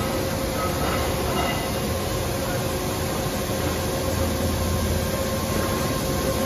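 Machine tool running on an electric-motor shaft, with cutting coolant spraying onto the spinning workpiece: a steady mechanical noise with a faint steady hum.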